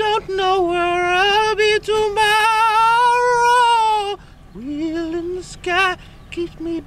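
A single high-pitched voice singing long, wavering held notes without clear words, pausing about four seconds in before a few short notes; a low steady hum runs beneath.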